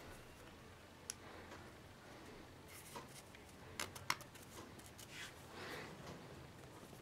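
Small handling clicks as a flat steel tool is lifted from a plastic storage case and turned in the fingers: a few sharp ticks, the loudest about four seconds in, then soft rustling.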